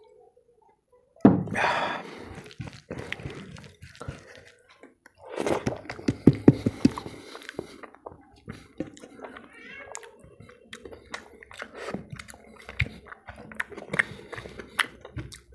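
Close-miked eating by hand: wet smacking, clicking and squishing from chewing and from fingers mashing rice and dal on a plate. There is a louder breathy burst about a second in, and a dense run of rapid wet smacks about halfway through.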